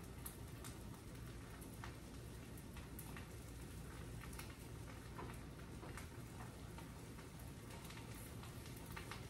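Scrambled eggs cooking in a frying pan: faint, irregular pops and crackles over a low steady hum.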